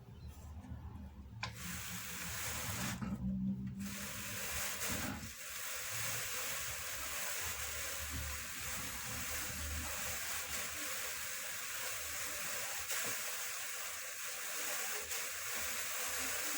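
Drum carder working a batt of Jacob fleece on its second pass: a steady hissing brush of the carding cloth through the wool, starting about a second and a half in.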